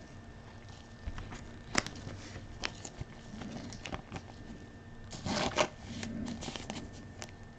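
Trading cards being handled: scattered faint clicks and rustles, with a slightly louder patch of rustling about five seconds in.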